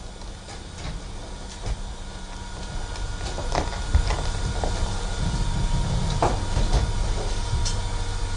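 Garbage truck's packer blade crushing a cloth-covered wooden chair in the hopper: a steady low mechanical rumble that grows louder a few seconds in, with scattered sharp cracks as the wooden frame breaks.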